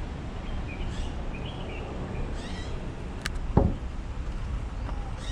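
Birds calling in short chirping phrases, repeated several times, over a steady low rumble. A single dull thump a little past halfway is the loudest sound.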